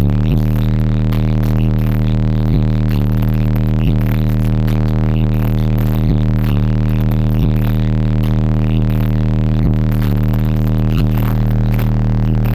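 Car subwoofer, a Sundown Audio ZV4 15-inch, holding one steady low bass note at high volume, distorted into a loud buzz with a few faint clicks through it.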